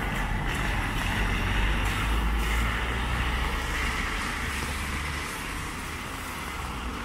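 Traffic on a rain-wet city street: a vehicle's low rumble under a steady hiss of tyres and rain. The rumble drops away about five seconds in, as the vehicle passes.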